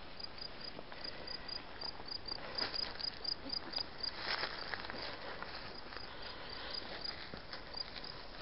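An insect chirping in a steady run of short, high chirps, about four a second, over the crunch and rustle of footsteps on a rocky woodland trail.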